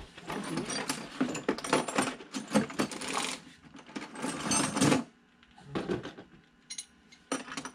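Small metal hardware clinking and rattling as a box of bolts and nuts is rummaged through, busy for about five seconds and then a few scattered clinks.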